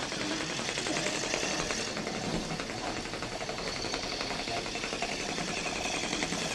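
Battery-powered hedgehog dog toy with its motor running: a fast, steady mechanical rattle.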